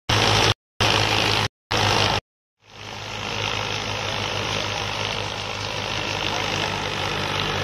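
Tractor-driven wheat thresher running while wheat is fed in: a steady engine hum under a broad whirring rush from the threshing drum. The sound cuts out abruptly several times in the first couple of seconds, then comes back and runs on steadily.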